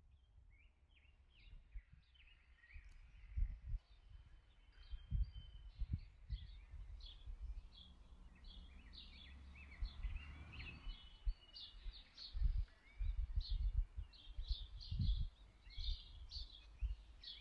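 Small birds chirping and twittering, many short high calls overlapping, busier in the second half, over irregular low rumbles.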